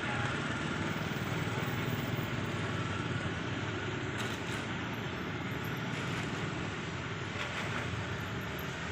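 Steady rumble of vehicles running, continuous and even throughout.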